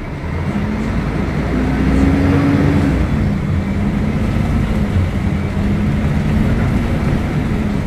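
Diesel engine of a Mercedes-Benz O500UDA articulated bus pulling under load. Its note climbs for the first couple of seconds, drops back about three seconds in, then holds steady.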